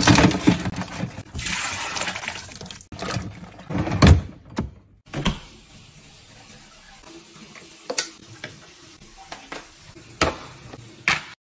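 Hard lobster shells clattering against a stainless steel drawer, a dense rattling for the first three seconds. Then a few separate sharp knocks.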